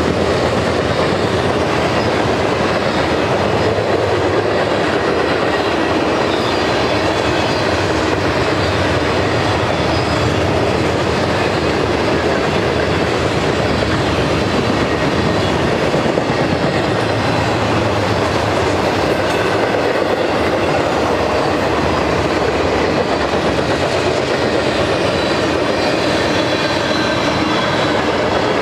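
Freight cars of a mixed manifest train (covered hoppers, tank cars, boxcars) rolling past, a steady rumble and clatter of steel wheels on the rails.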